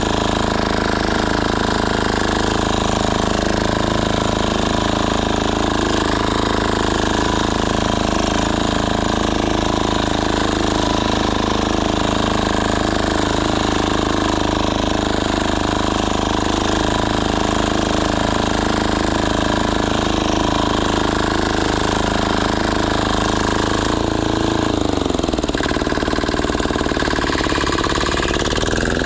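Diesel walk-behind tractor's single-cylinder engine running steadily while tilling with its rotary cutters. About 25 s in the revs sag, then climb back near the end.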